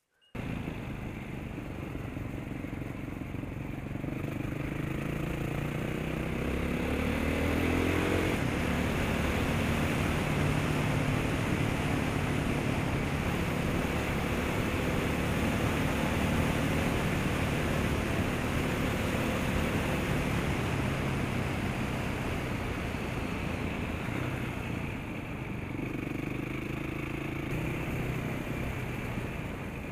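Adventure motorcycle engine under way, its pitch climbing between about four and eight seconds in as it accelerates, then holding steady at cruising speed, with a steady rush of wind noise. The engine note rises again briefly near the end.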